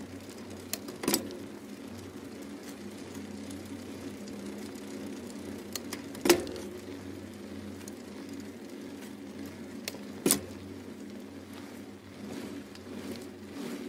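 Steady road and traffic rumble picked up by a camera on a moving bicycle, with three sharp knocks, about a second in, around the middle and about four seconds before the end.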